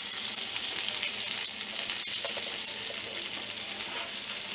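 Semolina- and rice-flour-coated black pomfret shallow-frying in hot oil in a pan, a steady sizzle, with light scraping of a metal spatula as the fried pieces are turned over to cook the other side.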